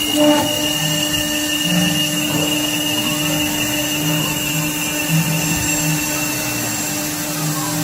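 CNC router spindle running steadily while milling aluminum, with a constant high whine over a low hum.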